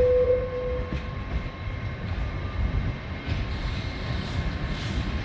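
Train running at a station platform: a steady low rumble with a faint steady whine over it, and a single held tone that ends about a second in.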